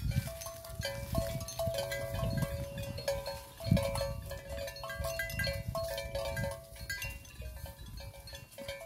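Background music, a melody of held notes stepping from pitch to pitch, with bursts of low rumble underneath.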